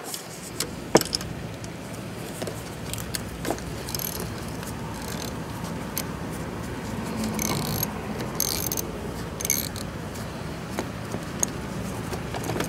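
Metal hand tools clinking as a socket and extension are fitted to a ratchet wrench, then the ratchet clicking in short runs, about four seconds in and again from about seven to nine and a half seconds, as it works the 8 mm valve-cover bolts on a GY6 150cc scooter engine.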